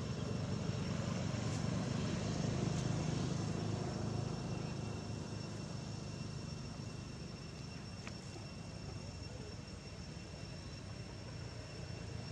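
Low engine rumble of passing motor traffic, swelling over the first few seconds and then slowly fading.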